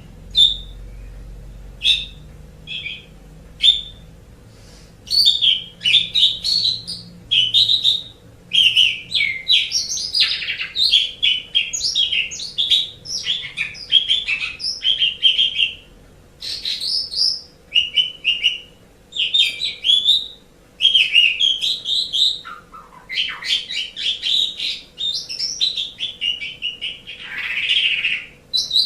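Javan pied starling (jalak suren) singing: a few separate short whistled notes at first, then from about five seconds in long runs of rapid chattering chirps and whistles broken by brief pauses.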